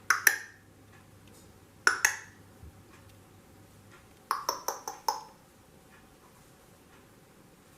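Sharp clinking taps of something small and hard: one at the start, one about two seconds in, then a quick run of five.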